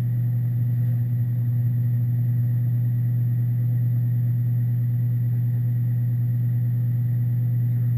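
Steady, loud low mechanical hum, even and unchanging throughout.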